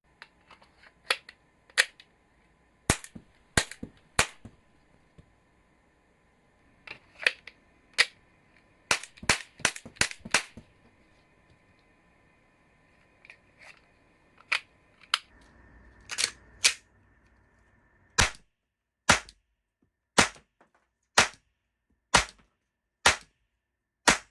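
Glock 34 Gen.3 model gun with a resin slide, frame and barrel firing caps: sharp cracks in irregular strings with some quick runs, fainter clicks between, then seven shots at about one a second near the end.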